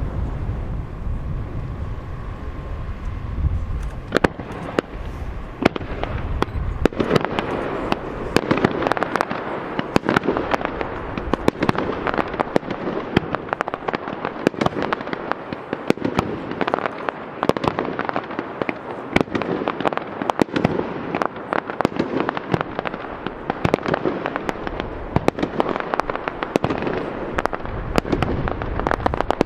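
Fireworks display: a low rumble for the first few seconds, then a dense, continuous run of sharp crackling pops from about four seconds in.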